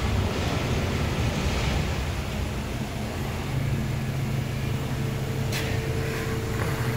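Steady low hum and noise from machinery in a workshop. A steady tone joins about two-thirds of the way in, and there is a single sharp click shortly after.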